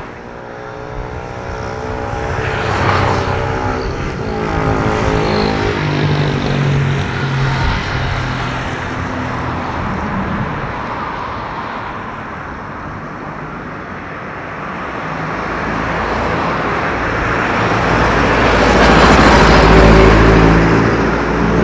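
Airbus A330-900's Rolls-Royce Trent 7000 turbofan engines at take-off power during the take-off roll: a jet roar with whining engine tones. It swells, eases a little midway, then grows loudest with a deep rumble near the end as the airliner passes.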